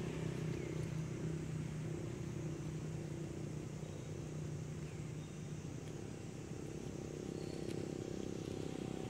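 Steady low engine hum, growing fainter after a few seconds.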